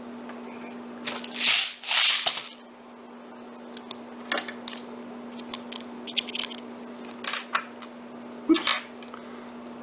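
Scattered clicks and taps of hands handling a small homemade mini cannon and a BB on a countertop, over a steady low hum. Two loud hissing bursts about half a second apart come near two seconds in.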